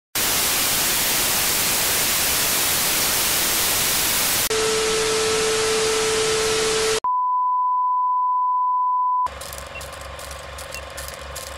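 Television static hiss, then the static with a steady low tone under it, then a pure, steady higher-pitched test tone on its own, each part cutting off abruptly. About two-thirds of the way in it drops to a much quieter crackly hum with faint ticks.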